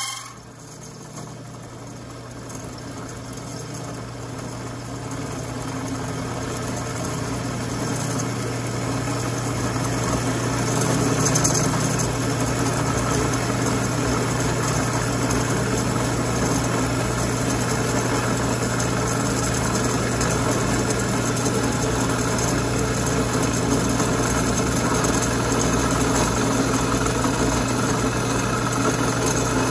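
Drill press running an end mill that cuts a slot, the work fed by hand on a cross-slide vise. The cutting noise builds over the first ten seconds or so and then holds steady over the motor's hum.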